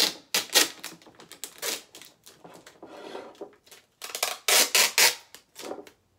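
Packing tape pulled off a handheld dispenser in a series of short loud rips, the biggest cluster about four to five seconds in.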